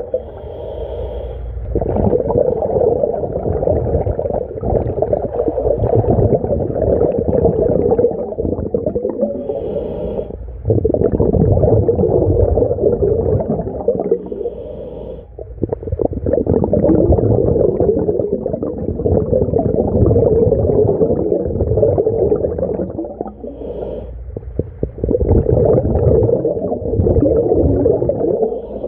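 A scuba diver breathing underwater from a mini scuba tank's regulator, heard through an underwater camera. Long stretches of bubbling exhaust bubbles alternate with short pauses, each with a brief hiss of the regulator on the inhale, about four breaths in all.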